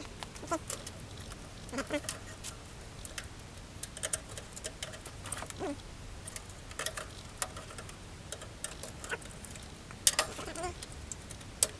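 Scattered clinks and clicks of hand tools and loose parts on metal, the loudest a quick cluster about ten seconds in, with a few short squeaks that slide in pitch.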